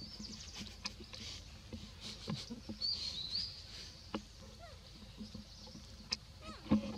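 A bird sings a short, stepped, high chirping phrase about three seconds in, over scattered faint clicks and taps. A brief, louder low vocal sound comes near the end.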